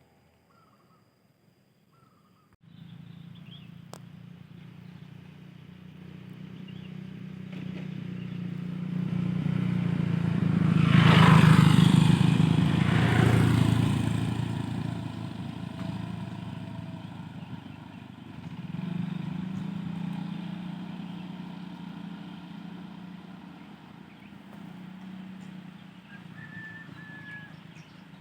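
A motor vehicle's engine comes in suddenly about three seconds in, grows louder as it approaches, passes close by about ten seconds in, and fades away. A smaller swell follows a few seconds later before it dies down.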